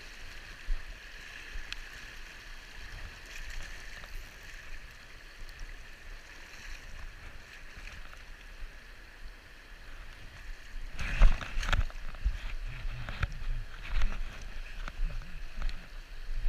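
River water rushing steadily over a rocky riffle, with a cluster of sharp knocks and clatter from handling about eleven seconds in and a few lighter ones after.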